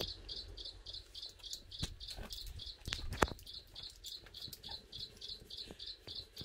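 An insect chirping in a steady, high-pitched rhythm of about five chirps a second, with a few scattered clicks and knocks.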